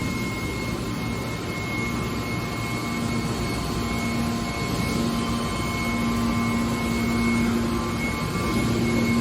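Hydraulic aluminum can baler running: a steady machine drone from its motor and hydraulic pump, with a low hum that grows stronger about a third of the way in.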